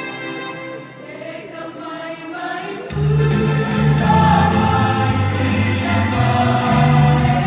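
Choir singing a medley of Indonesian folk songs in several voice parts. About three seconds in, low voices join and the sound becomes louder and fuller.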